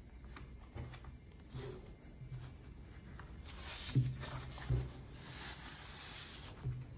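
Stiff white cardboard being slid over a wooden tabletop and folded open: light scraping and rustling of card, louder past the middle, with two soft thumps about four seconds in as the folder is opened and laid flat.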